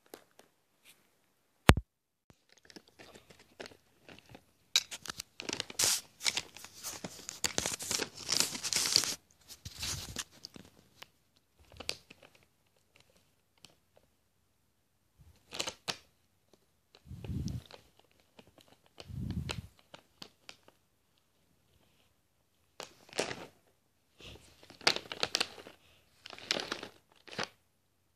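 Plastic cat-treat bag crinkling and rustling in irregular bursts as a cat pushes its head into it, with two dull bumps partway through.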